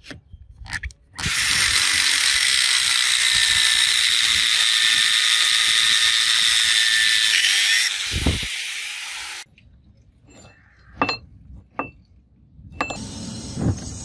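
Angle grinder with a cutting disc slicing into a hardened 52100 steel bearing race: a loud, steady high-pitched whine with grinding hiss for about six seconds, then the cut stops and the disc runs down. A few sharp clicks follow, and near the end a steady rushing noise starts as a flame burns.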